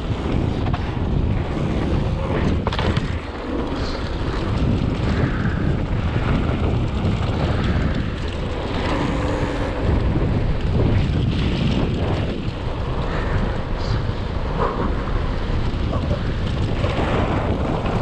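Wind buffeting the microphone over the steady rolling and rattling noise of a mountain bike riding down a dirt trail.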